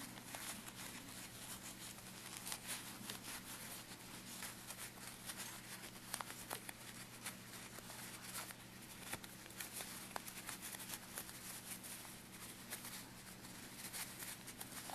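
Faint, irregular rustling and scratching of a tiny cloth doll's pillow being turned and worked between the fingers, over a steady low hum.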